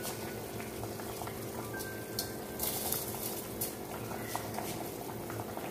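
Vegetable biryani water boiling in an open aluminium pressure cooker, with the rice just added: a steady bubbling with small irregular pops.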